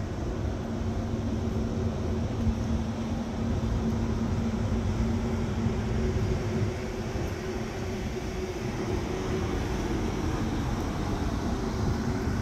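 Kenworth semi truck's diesel engine idling: a steady low rumble with a constant droning hum.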